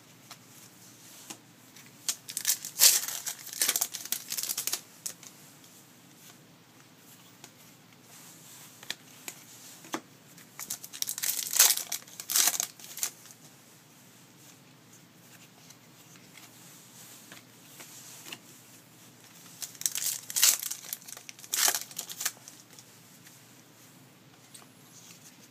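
Foil trading-card pack wrappers being torn open and crinkled by hand, in three bouts a few seconds apart.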